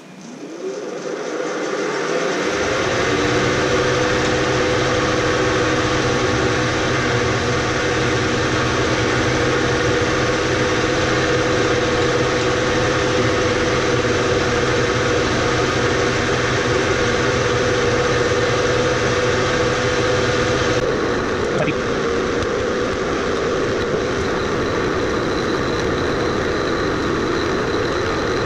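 Bridgeport milling machine spindle motor starting and running up to speed over the first couple of seconds, spinning a fly cutter with a steady whining hum. About 21 seconds in, the steady tones give way to a rougher, noisier whir.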